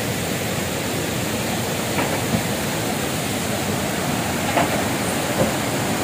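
Steady rush of falling and flowing water.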